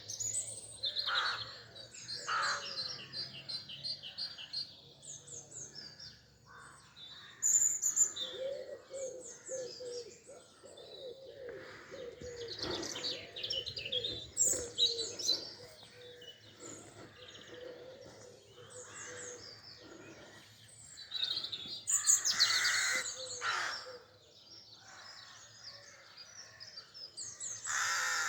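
Spring dawn chorus: many songbirds singing and chirping over one another in quick, high trills. A louder, harsh call breaks in about two-thirds of the way through.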